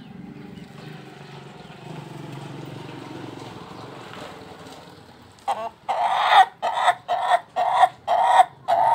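Ayam ketawa rooster crowing in its laughing style: a quick run of about seven short, loud, staccato syllables, starting about halfway through.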